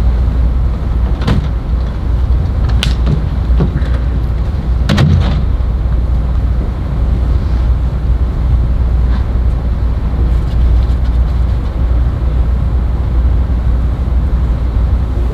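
Steady low hum, with a few sharp knocks; the loudest, about five seconds in, is a stage door shutting.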